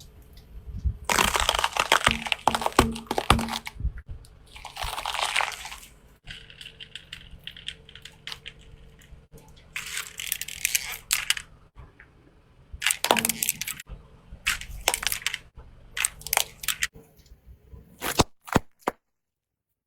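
Brittle objects cracking and crunching as they are crushed under a car tyre, in several separate bursts of crackling. The sound cuts off abruptly to silence near the end.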